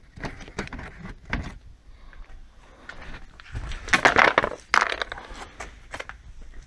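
Hard plastic trim panels handled with clicks and rustling, then the loudest part, a scraping clatter of plastic on brick paving from about three and a half to five seconds in, as the radiator top cover is laid down.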